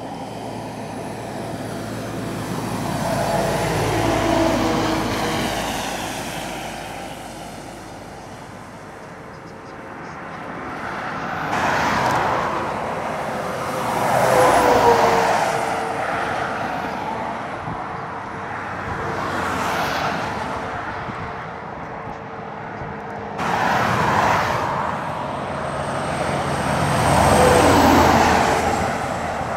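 Heavy articulated trucks, among them a Scania car transporter and a Volvo FH tanker, climbing a long uphill grade under load and passing one after another. Each diesel engine and its tyres swell up and fall away, the engine note dropping in pitch as the truck goes by.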